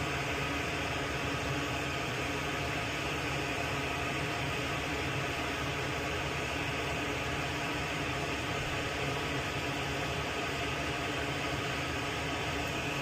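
Steady whir of a running fan, with a constant hum and hiss.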